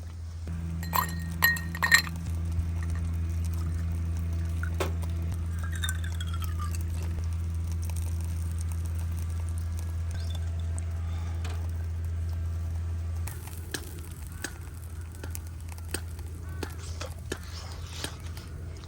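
Glass clinking a few times in quick succession about a second in, over a steady low hum that stops about two-thirds of the way through, followed by scattered small clicks.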